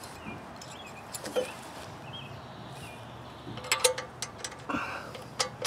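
Small metal clicks and clinks of a rocker arm and hand tool being fitted over the valve springs in the head of a Honda GC190 engine, starting about three and a half seconds in, with a short scrape and a last sharp click near the end.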